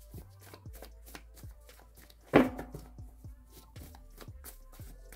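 A stack of handwritten paper cards being leafed through and shuffled by hand, giving many small clicks and flicks, with one louder knock a little over two seconds in.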